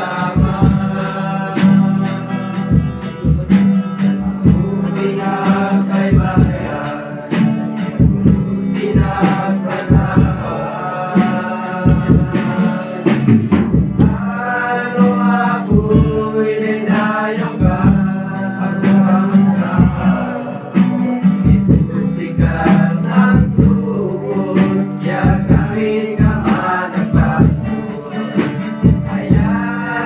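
A group of young singers singing a gospel worship song together, accompanied by a strummed acoustic guitar keeping a steady beat.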